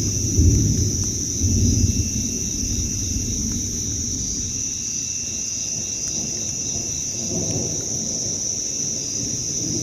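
Steady, high-pitched chorus of night insects such as crickets and katydids, with a fainter pulsing insect call joining about four seconds in. A low rumble swells in the first two seconds and returns more weakly near the end.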